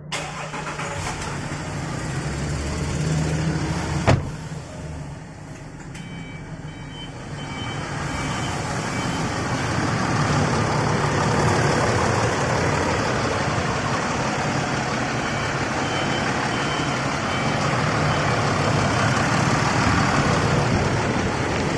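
Range Rover engine, a freshly fitted exchange rebuilt unit, starting up and running steadily after a sharp click about four seconds in. Short high warning beeps sound in two runs.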